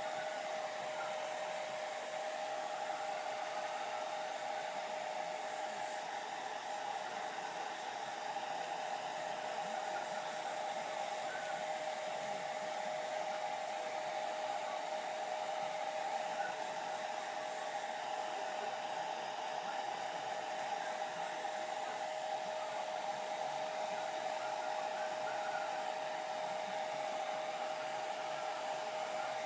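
Hair dryer running steadily: a constant motor hum with a rush of blown air, unchanging throughout.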